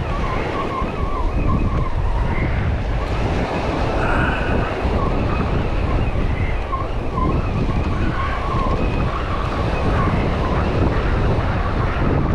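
Ocean surf washing in and wind buffeting the microphone: a steady, loud rush with a low rumble.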